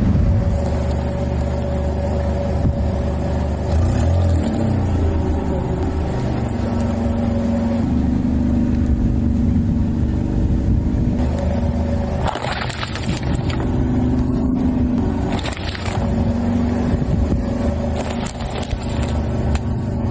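Car engine running steadily at low revs as the car rolls slowly. Bursts of crackling come about twelve seconds in, again around fifteen seconds and near the end, which fit objects being crushed under the tyres.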